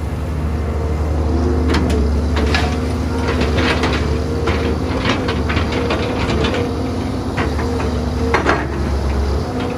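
Caterpillar 320B excavator's diesel engine running steadily under load, with repeated knocks and clatter of dirt and rocks dropping from its bucket into a steel dump-truck bed.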